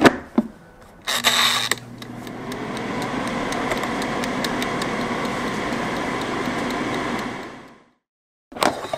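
Queen Made air fryer being set to cook: the basket clicks shut, the mechanical timer dial is wound, then the fan starts and runs with a steady whir and low hum, with the timer ticking faintly over it. The sound fades out near the end.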